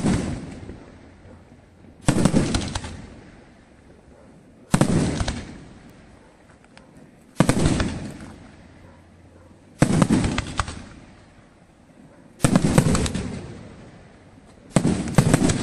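Aerial firework shells bursting in a steady sequence, about one sharp bang every two and a half seconds, each trailing off over about a second. Near the end two bursts come close together.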